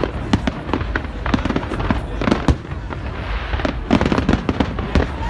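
Display fireworks going off in a dense barrage: sharp bangs and cracks in quick succession, several a second, over a steady low rumble.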